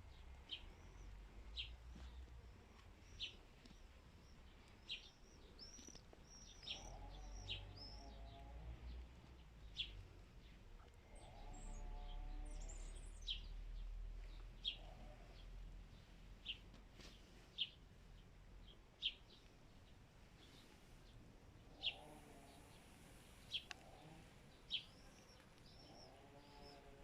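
Birds chirping in a garden: short, sharp, high chirps repeated every second or two, with a few lower calls among them. A faint low rumble runs underneath and swells for a few seconds near the middle.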